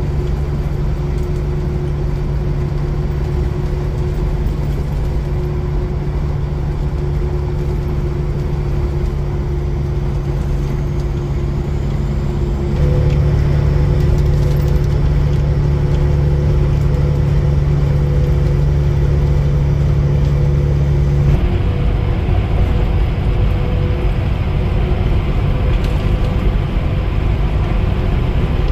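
Semi truck engine and road noise heard in the cab while driving, a steady low drone. It grows louder about halfway through, and its tone changes about two-thirds of the way in, as with a change of gear or throttle.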